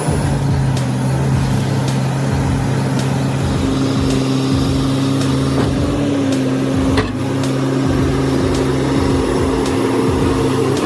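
Heavy diesel engine of a machine running steadily under load, with a single sharp knock about seven seconds in.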